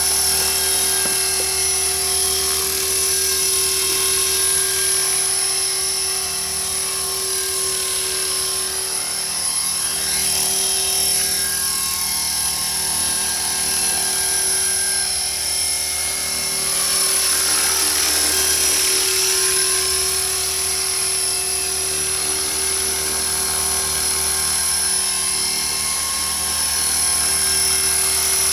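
Radio-controlled model helicopter in flight: a steady high motor whine over the hum of the rotor blades. The pitch sweeps up and down a couple of times as it manoeuvres.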